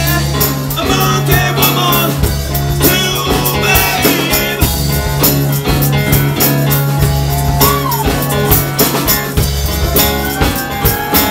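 Live rock band playing: Stratocaster-style electric guitar over a drum kit keeping a steady beat.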